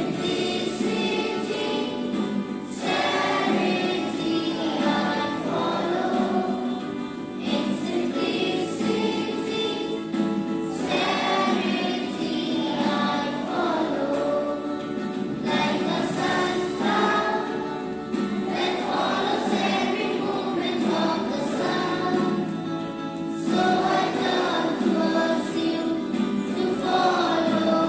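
A group of school students singing an assembly prayer song together in chorus, one continuous sung melody phrase after phrase.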